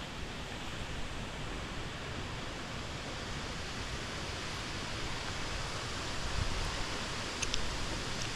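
Steady rushing of a waterfall, an even wash of noise with no changes, with a couple of faint clicks near the end.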